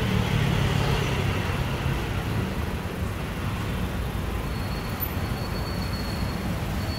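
Steady background noise with a low hum, stronger in the first two seconds. A faint thin high whistle comes in about four and a half seconds in. No clicks or snaps of trim clips are heard.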